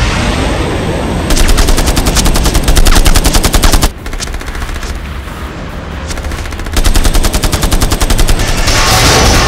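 Fighter jet cannon firing in two long rapid-fire bursts, the first of about two and a half seconds and the second of about two seconds. A steady jet rush fills the gap between them, and a louder rushing surge comes near the end.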